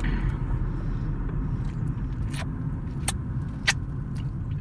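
Steady low rumble of a car heard from inside the cabin, with a few short clicks in the second half.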